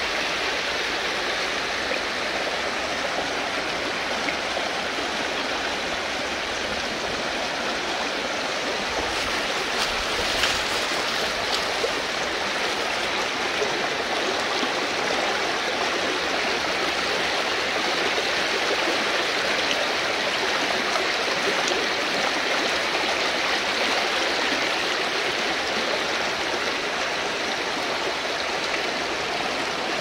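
Shallow river rushing and splashing over rocks in small rapids, a steady flowing sound, with a brief louder swell about ten seconds in.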